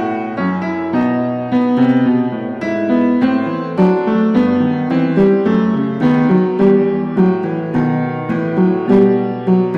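Background piano music: a melody of struck notes, about two a second.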